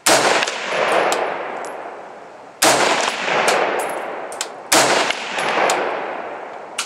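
Three single shots from a Stag Arms AR-15 rifle in 5.56/.223, about two seconds apart, each ringing out and fading over a couple of seconds. Faint metallic clinks sound between the shots.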